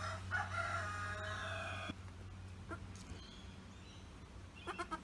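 A newborn goat kid bleating once: a high, drawn-out call lasting about a second and a half. It is followed near the end by a few short sounds.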